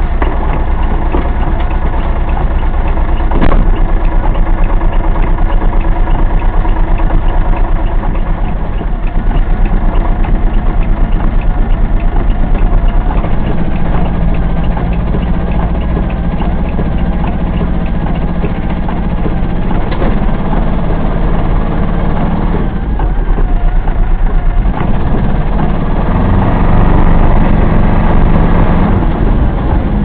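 The small Kubota two-cylinder diesel engine of an Aixam Mega Multitruck van, running as heard from inside the cab. It idles, then works harder as the van manoeuvres and moves off. Two sharp knocks come through, one a few seconds in and one midway.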